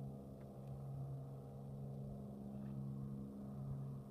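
Faint, steady drone of a small seaplane's propeller engine flying past overhead.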